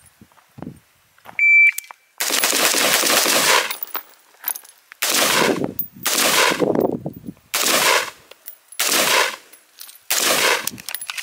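A shot timer gives one short beep, then gunfire follows in about six quick strings of shots with short pauses between them: a timed range drill.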